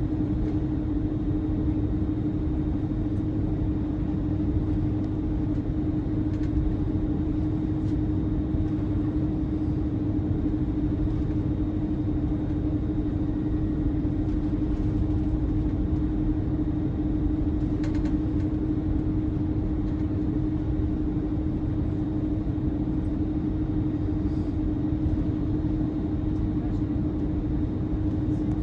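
Airbus A330-203 cabin noise in flight: a steady low rumble of the General Electric CF6 engines and airflow along the fuselage, with a constant hum held at one pitch throughout.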